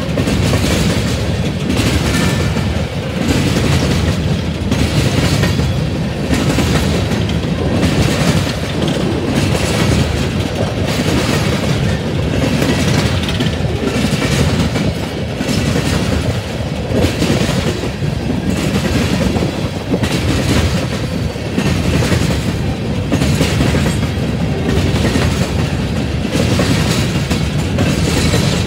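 Empty coal cars of a freight train rolling past: a steady rumble of steel wheels on rail, with a regular clickety-clack about once a second as the wheelsets cross rail joints.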